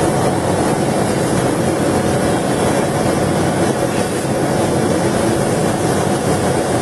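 Leather laser cutting machine running: a loud, steady rushing drone with no clear rhythm.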